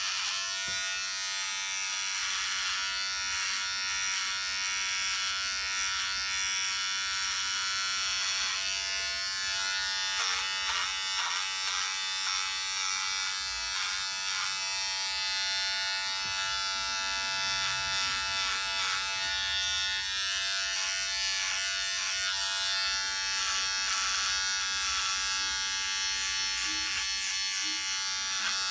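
Handheld electric shaver buzzing steadily as it is run over the chin and neck, cutting through beard hair.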